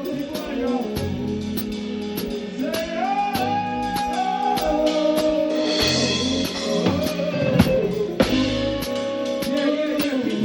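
Live band music: a drum kit keeps a steady beat while pitched melodic lines, voice or guitar, move over it.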